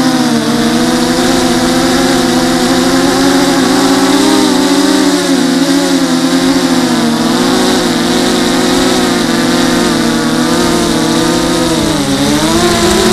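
FPV racing quadcopter's brushless motors and propellers whining in flight, one propeller missing about a centimetre from its tip. The pitch wavers up and down with the throttle, dipping briefly near the end and climbing back.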